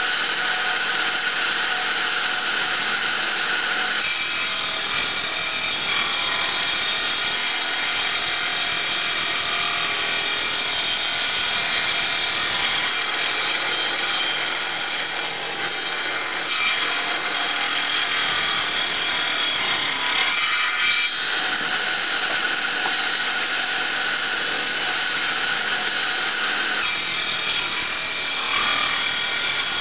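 Homemade table circular saw driven by an electric motor, ripping a board lengthwise: the blade whines steadily as it cuts wood. The sound of the cut swells and eases several times as the board is fed through.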